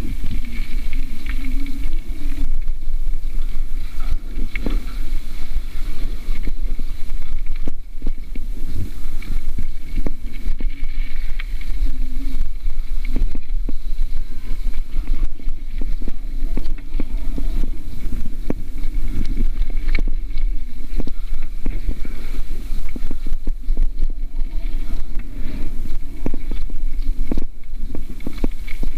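Mountain bike ridden fast down a dirt and gravel trail, heard from an on-board camera. Wind buffets the microphone with a constant low rumble, over tyre noise on the dirt and frequent rattling clicks and knocks as the bike goes over bumps.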